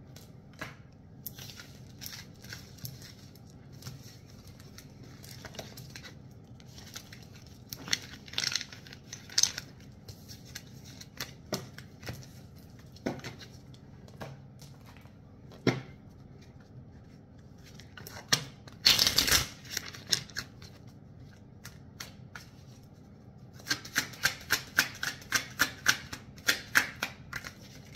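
A deck of oracle cards being hand-shuffled: scattered soft card taps, a short dense rush of cards about two-thirds of the way through, and a quick run of card slaps near the end, about five a second.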